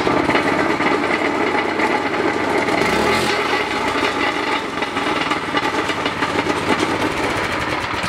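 Harbor Freight Predator 212 single-cylinder engine, its governor removed, running loud and being revved by hand through its throttle cable.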